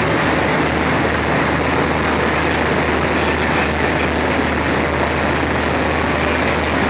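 Diesel locomotive engine idling close by: a steady, loud running sound with a constant low hum beneath an even wash of engine noise.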